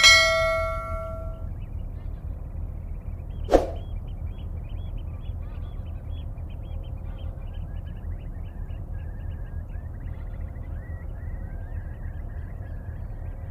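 Steady rush of flowing river water, with small birds chirping over and over from about three and a half seconds in and trilling later on. At the very start a single metallic clang rings out for about a second and a half, and a short sharp knock follows a few seconds later.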